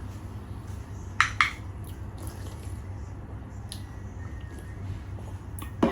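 Small wet mouth and drinking sounds from a person eating and drinking at a table. There are two sharp clicks about a second in and a few faint clicks after, over a steady low hum.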